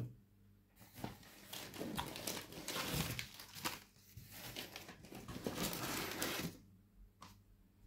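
Packaging rustling and crinkling with small clicks and knocks as plastic DVD cases are handled and lifted out of a parcel. It starts about a second in and dies away shortly before the end.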